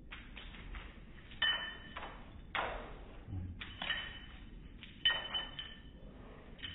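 A sliding glass door being struck in a series of sharp knocks, about a second apart, each leaving a short glassy, metallic ringing.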